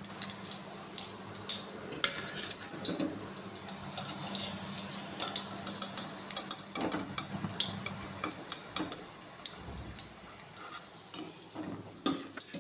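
Wire spider strainer clinking and scraping against a metal kadhai while fried colocasia-leaf rolls are lifted out, with hot oil sizzling steadily underneath.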